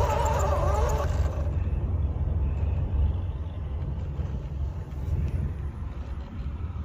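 A low, steady rumble of wind buffeting the microphone, with a 1/12-scale RC crawler truck driving over grass and dirt. A short melody fades out about a second in.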